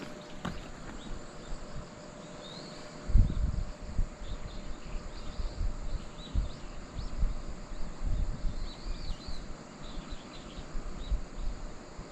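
Outdoor ambience: small birds chirping over a steady high insect drone. From about three seconds in, irregular low gusts of wind buffet the microphone and are the loudest sound.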